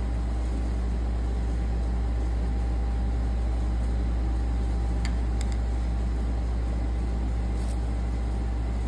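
A steady low mechanical hum, with a few faint light clicks about five seconds in and again near the end.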